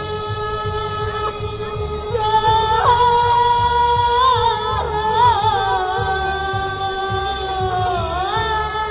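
Bulgarian folk music: singing in long, ornamented held notes over a steady drone, with a low rhythmic beat underneath.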